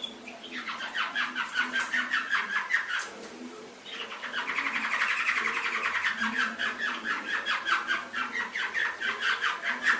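Domestic canary singing two long phrases of rapid trilled notes; the first breaks off about three seconds in and the second starts about a second later and runs on.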